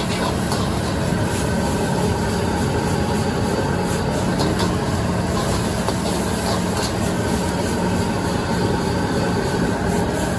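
Gas wok burner running with a steady rush of flame under a wok of frying noodles, with the noodles sizzling and a metal ladle scraping and tapping against the wok now and then.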